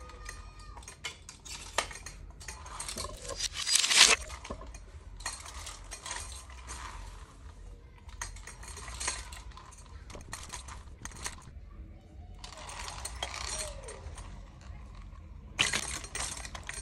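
Stainless-steel knives, kitchen scissors and a sharpening steel clinking and rattling against a metal knife stand as they are handled and slotted in, a run of sharp clicks and short clatters. The loudest clatter comes about four seconds in, with another burst near the end.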